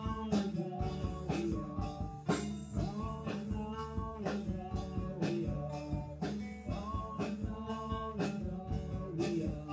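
Band playing live: a drum kit keeping a steady beat under guitar and a man singing.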